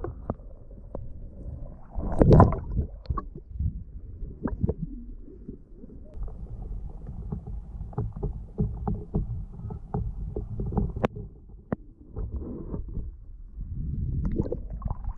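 Muffled underwater water noise picked up by a GoPro inside its waterproof housing: low rumbling water movement with scattered sharp clicks and knocks, and a louder thump about two seconds in.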